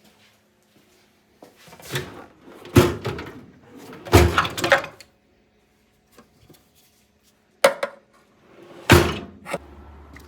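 Knocks, clanks and thuds of tools and parts being handled and worked on, in about five separate bursts with quiet gaps between, the loudest about three seconds in and about nine seconds in.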